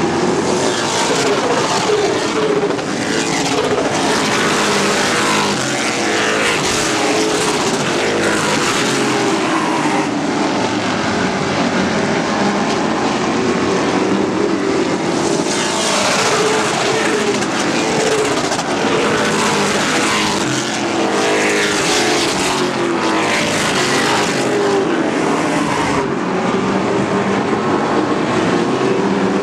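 A pack of short-track race trucks running at racing speed on an oval, their engines loud and continuous, the pitch rising and falling as they lift for the turns and accelerate out. The sound swells louder as the trucks sweep past, about halfway through and again a few seconds later.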